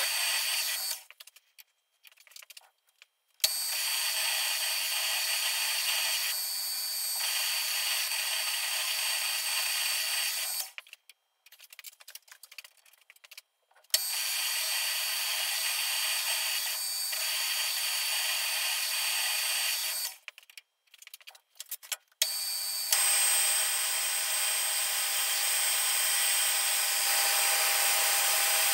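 Metal lathe running and machining a steel workpiece: a steady cutting noise with a faint high whine. It drops out abruptly three times for a couple of seconds, leaving only scattered faint clicks, then comes back.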